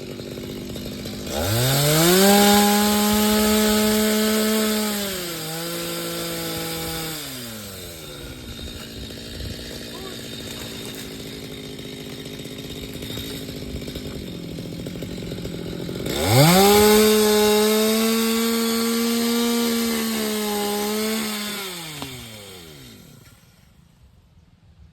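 Chainsaw idling and revved to full throttle twice, each burst held for a few seconds with its pitch sagging partway, then falling back to idle. The engine cuts off near the end.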